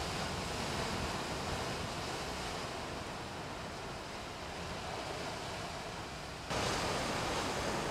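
Ocean surf washing on a rocky shore, a steady rush of water that gets louder about six and a half seconds in.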